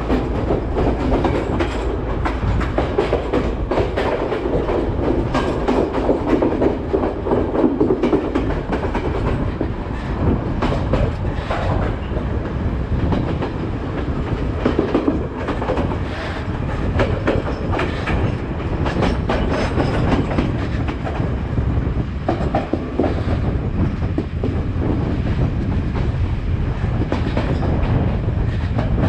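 Passenger train carriage running along the track, heard from an open window at the carriage side: a steady rumble with the repeated clatter of wheels over rail joints.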